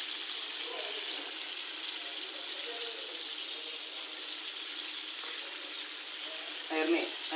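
Coated chicken pieces deep-frying in hot oil: a steady sizzling hiss.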